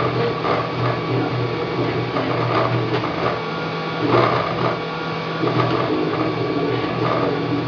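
Wanhao Duplicator 3 desktop 3D printer printing: its stepper motors whine in steady tones that jump to new pitches every fraction of a second as the print head moves back and forth.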